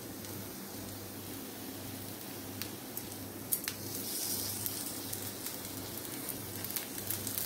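Oil sizzling steadily as a gram-flour-battered stuffed bread pakora shallow-fries on its edge in a flat non-stick pan. A few light clicks of the metal tongs come about three seconds in, and the sizzle turns brighter and hissier around the middle.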